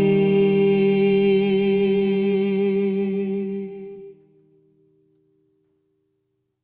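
Two voices holding the final chord of an a cappella folk song in close harmony, with a gentle vibrato. Loud until about four seconds in, then the chord drops away and a single higher note fades out.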